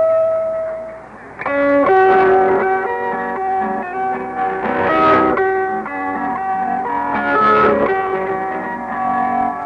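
Plucked-string music received over a shortwave radio broadcast: a held note dies away about a second in, then a run of plucked notes follows.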